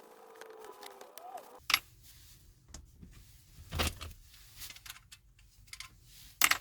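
Scattered clicks and knocks of parts being handled, the loudest a sharp click near the end and a duller knock in the middle, with a steady hum that stops about a second and a half in.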